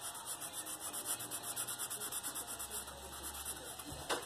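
Felt-tip marker scratching over paper in quick, even back-and-forth strokes while colouring in an area, with a small click near the end.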